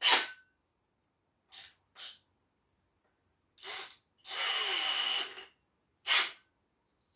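Milwaukee M18 cordless drill with a hole saw fitted, run briefly for just over a second past the middle with a steady high whine. Around it are several short clicks and handling knocks, the first and last with a brief metallic ring.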